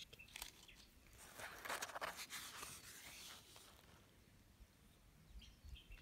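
Paper page of a picture book being turned: a rustle of about two seconds, starting a little over a second in.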